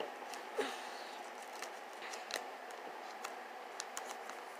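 Faint handling noise of plastic card-binder pages and sleeves: scattered small clicks and crinkles as a trading card is worked out of its pocket, with a slightly louder rustle about half a second in.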